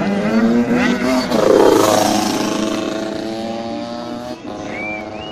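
Several 85cc motocross bike engines revving hard, their pitch rising and falling as they accelerate and shift. One bike is loudest about a second and a half in, then the engine noise eases off. A short, high, wavering chirp comes near the end.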